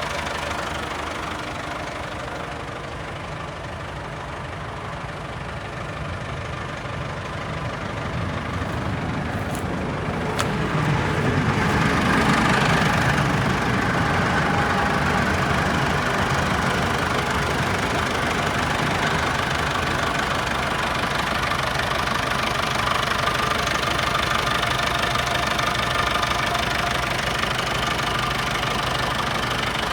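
The diesel engine of a 2001 JCB 3CX backhoe loader, a Perkins, running steadily. About ten seconds in it picks up and settles into a louder, steady run. A single short click is heard just as the engine picks up.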